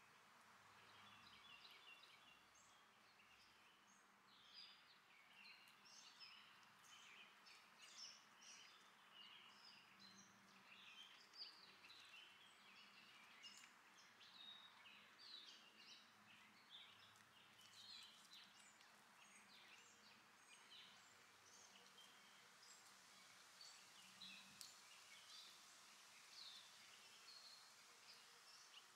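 Faint backyard birdsong: many short chirps and calls from several birds, overlapping steadily, over a soft background hiss.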